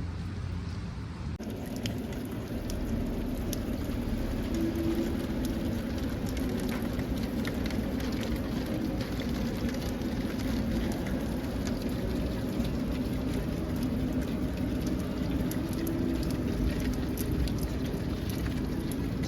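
Steady rain, with many small drop ticks over an even hiss and a low hum underneath. The sound steps up suddenly about a second and a half in.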